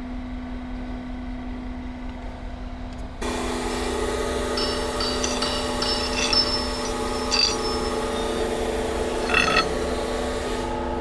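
An engine running steadily. About three seconds in it suddenly gets louder and fuller and holds there, with several short high-pitched squeals or scrapes over it.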